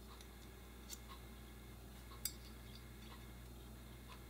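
A few faint, light metallic clicks as tweezers and small steel parts knock against a 1911 pistol frame while a Series 80 part is worked into place, the sharpest click a little past halfway, over a faint steady hum.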